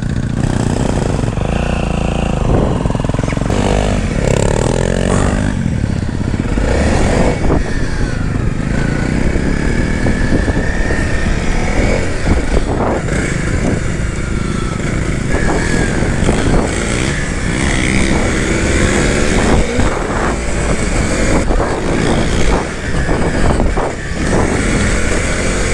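Honda CRF300L's single-cylinder four-stroke engine running as the motorcycle is ridden along a dirt trail, its pitch rising and falling with the throttle.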